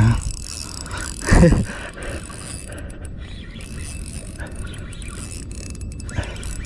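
Spinning reel being cranked steadily, its gears making a fine rattling whir as line is wound in against a hooked fish pulling on a bent rod. One brief louder sound about a second and a half in.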